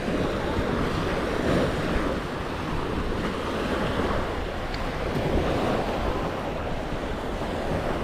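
Waves washing onto the shore, a steady rushing noise with wind buffeting the microphone.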